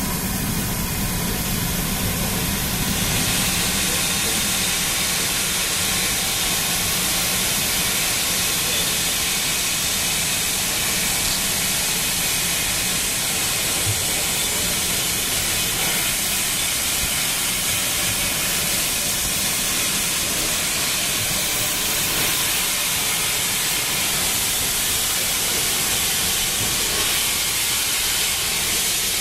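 Steady hiss of escaping steam from LMS Royal Scot class locomotive 46100 'Royal Scot' as it pulls slowly away, steam blowing from around its cylinders and wheels. The hiss grows louder about three seconds in.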